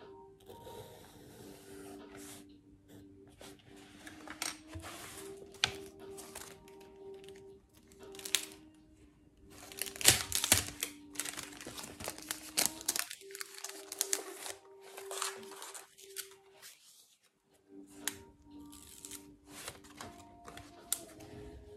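Paper handling on a desk: sticky page flags peeled off their pad and pressed onto book pages, with the book's pages rustling and a pencil on paper, in short crackly strokes that are loudest about ten seconds in. Soft background music with held notes plays underneath.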